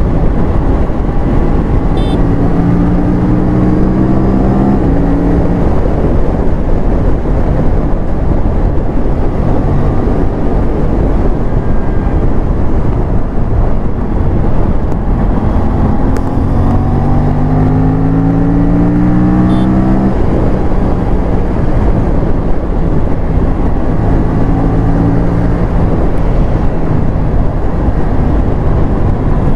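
Aprilia sport bike's parallel-twin engine accelerating hard, its note climbing twice, from about two and about sixteen seconds in, each climb ending in a sudden drop in revs, over a steady rush of wind noise.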